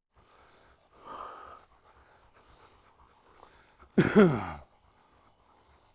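A faint rustle about a second in, then a single short voiced pant or sigh about four seconds in, falling in pitch.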